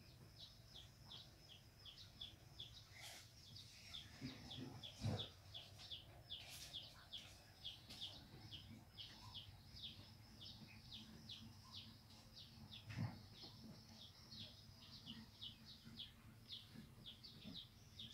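A bird chirping repeatedly, about two or three short high chirps a second, keeping on steadily. A soft low knock comes about five seconds in and another near thirteen seconds.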